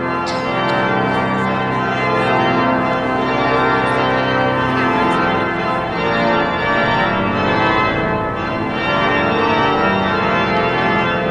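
Organ playing full, sustained chords that change every few seconds.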